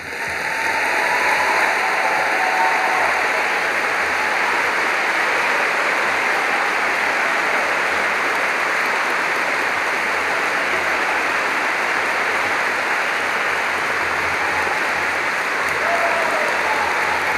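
Large audience applauding, building within the first second and then holding steady.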